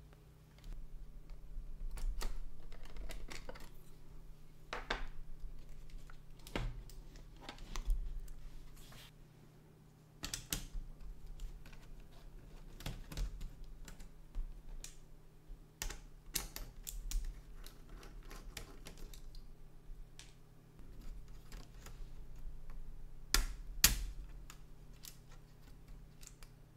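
Plastic case and parts of a Logitech MX Mechanical Mini keyboard being pried apart and handled: irregular clicks, snaps and knocks of plastic, with a small screwdriver working on the inside.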